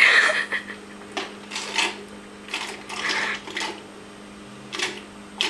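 A person breathing out hard and gasping in a string of short, breathy bursts, the first and loudest right at the start, in reaction to just gulping down a sour, spicy cayenne-pepper and apple-cider-vinegar drink.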